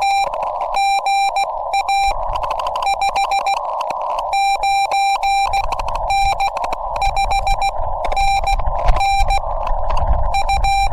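Morse code from a Yaesu FT-891 ham radio transceiver: a single steady beep keyed on and off in dots and dashes, alternating with the hiss of band static.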